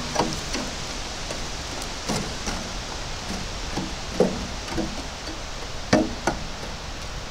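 Metal poker knocking among burning coals in a metal brazier: about five short knocks, roughly two seconds apart, over a steady rush of wind.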